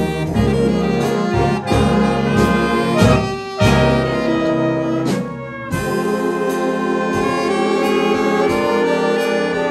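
Jazz big band playing, with saxophones, trumpets and trombones in full sustained chords. The sound drops out briefly twice a few seconds in, then the full chords return.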